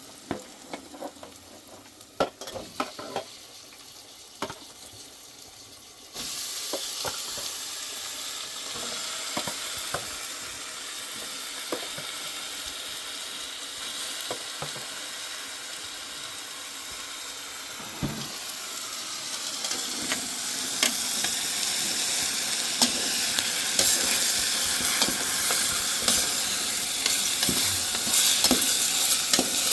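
Food frying in hot oil in a pan, a steady crackling sizzle. After a few clicks and knocks, the sizzle starts suddenly about six seconds in and grows louder toward the end.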